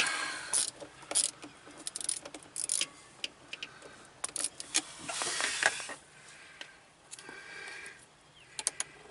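Hand tools clicking and clinking on metal fittings as the battery cable nuts are tightened, with a stretch of scraping about five seconds in.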